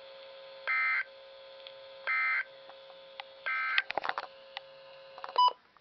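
A Midland WR100 weather radio's speaker plays the three short data bursts of the NOAA Weather Radio SAME end-of-message code, each about a third of a second long and a second and a half apart, over a faint steady hum; these bursts mark the end of the warning broadcast. Near the end come a few clicks and one short, loud beep.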